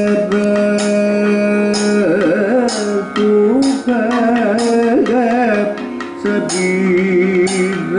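Kathakali music: a singer holding long notes and bending them in ornamented glides, with a sharp percussion stroke about once a second keeping time.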